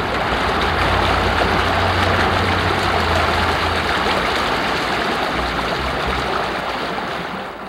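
Loud, steady rushing water, as of a waterfall or fast cascading stream, with a low rumble under it that eases about halfway through.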